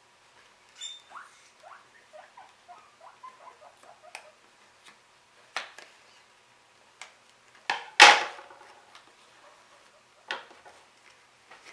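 Scissors snipping and scraping at clear plastic packaging on a small cardboard box, giving small squeaks and clicks, with one louder clatter about eight seconds in.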